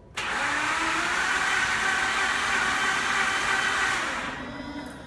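Mazda RX-8's starter cranking its Renesis rotary engine with an unusual snoring sound, and the engine does not catch. The sound starts abruptly, runs steadily for about four seconds, then winds down.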